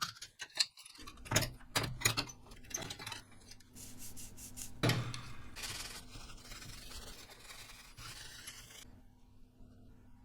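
Hands working on computer hardware: a quick run of sharp clicks and taps, then several seconds of steady rubbing and scraping that stops about nine seconds in.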